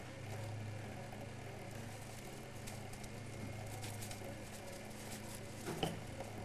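Steady low hum with faint scattered ticks and rustles, and one short knock near the end.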